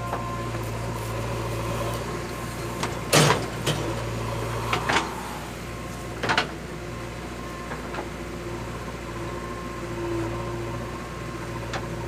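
JCB 3DX backhoe loader's diesel engine running steadily as the backhoe digs soil. A few sharp clanks from the bucket and arm come about three to six seconds in, the loudest a little after three seconds.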